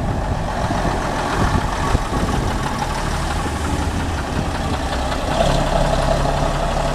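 Leyland Atlantean double-decker bus's rear-mounted diesel engine running as the bus passes and pulls away, with a change in the engine note about five seconds in.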